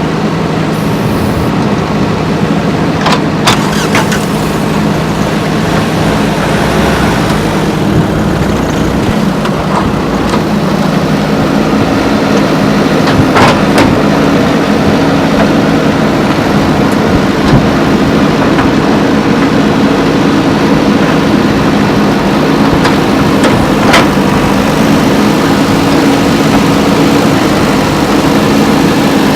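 JCB 3DX backhoe loader's diesel engine running steadily under work, its pitch rising a little about twelve seconds in. A few short knocks sound over it.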